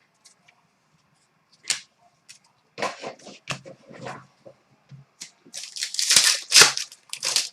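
Trading cards and their plastic sleeves being handled: a run of short rustles, slides and light clicks, busiest near the end.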